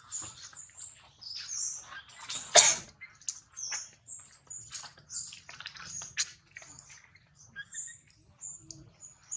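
Many short high-pitched chirps and squeaks in quick succession, some falling in pitch, with one sharp click about two and a half seconds in.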